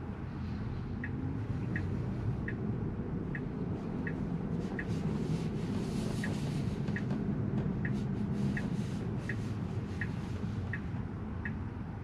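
Tesla turn-signal ticking about once every three quarters of a second over the low, steady rumble of the car rolling slowly, heard from inside the cabin.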